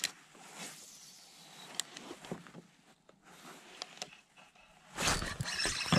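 Spinning reel handled just after a cast, with a few soft clicks and small handling sounds. About five seconds in comes a sudden loud rush of noise.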